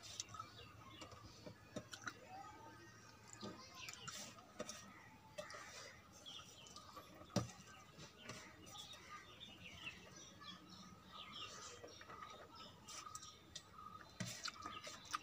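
Faint sounds of eating by hand from a steel plate: fingers mixing and scooping rice and curry, with scattered clicks of fingers and rice against the metal, one sharp click about seven seconds in. Small birds chirp throughout.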